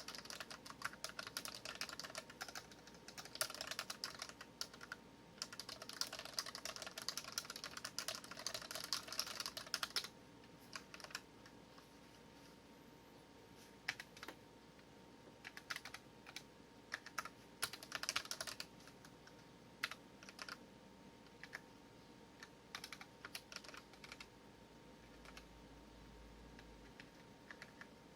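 Dareu EK820 mechanical keyboard with red linear switches being typed on: fast continuous typing for about the first ten seconds, then slower, scattered single keystrokes.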